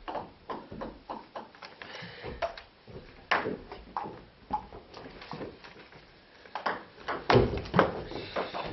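Table tennis ball striking bats and the STIGA Elite Roller table: sharp clicks, a few scattered ones at first, then a rally with a click about every half second near the end.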